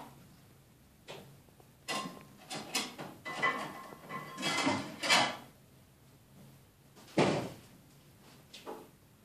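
A plastic pet carrier and its wire-grille door rattling and knocking as a cat brushes against them: a run of clatters for a few seconds, then a louder single knock about seven seconds in.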